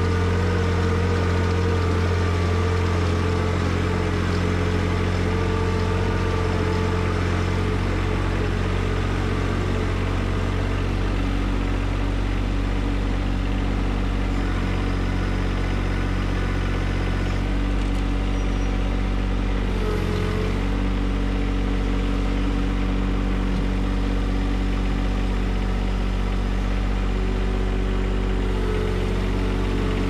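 John Deere 1025R compact tractor's three-cylinder diesel engine running steadily while the tractor is driven. The engine speed shifts slightly about a third of the way through and again a little past halfway.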